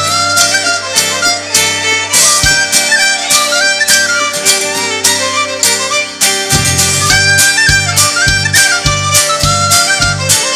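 Instrumental break of a folk band: harmonica carrying a stepping melody over acoustic guitar and fiddle. A steady beat of drums and bass comes in about six and a half seconds in.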